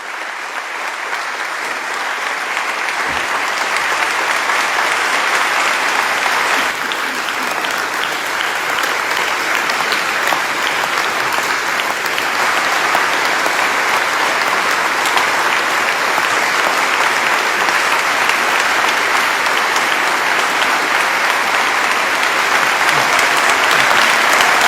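Audience applauding, a dense sustained clapping that swells over the first few seconds and then holds steady.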